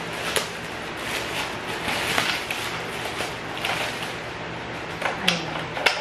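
Clear plastic bag crinkling and rustling as a vacuum cleaner's floor-nozzle attachment is pulled out of it. There are a few sharp clicks of hard plastic near the end.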